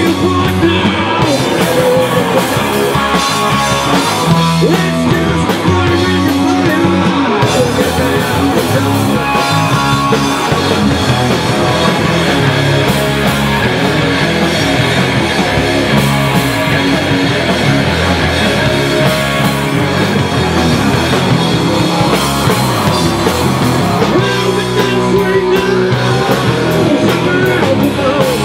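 A rock band playing loud, live in a small rehearsal room: electric guitars, one a Les Paul, with bass guitar and a Pearl drum kit.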